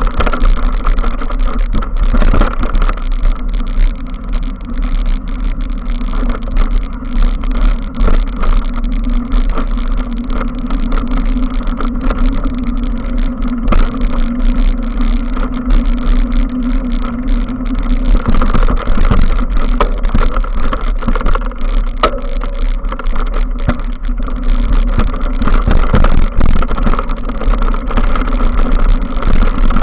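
Mountain bike riding along a rough dirt trail: a steady low rumble and hum, with frequent sharp knocks and rattles as the bike goes over bumps.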